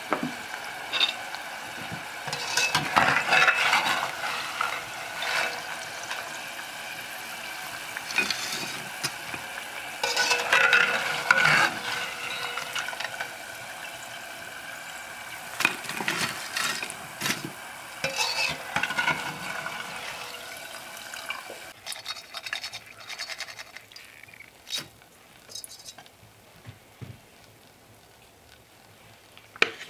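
Oil sizzling in a cast-iron pot while fried potato curls are scooped out with a metal skimmer, with several bouts of scraping and clinking of the skimmer against the pot. The sizzle and clatter grow quieter in the last several seconds.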